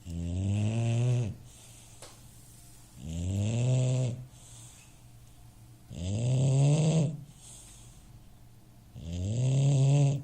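Bulldog snoring very loudly: four long, buzzing snores about three seconds apart, each with a slight rise in pitch.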